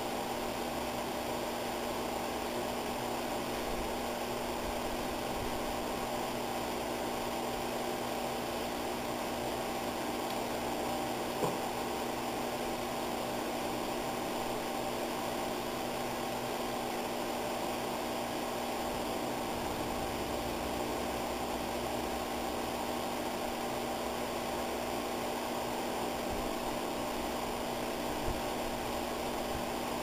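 A steady hum with hiss, like a fan or appliance running, with a faint tick about eleven seconds in and another near the end.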